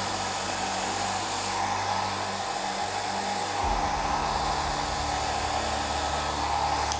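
Hair dryer blowing steadily, used to blow wet acrylic paint out across a canvas in a Dutch pour. It shuts off at the very end.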